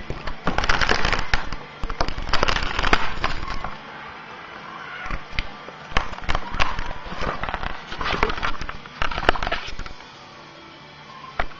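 Laptop display parts handled and pried apart by hand: irregular bursts of crackling and rustling with sharp clicks and snaps of plastic and thin metal, quieter for the last second or so.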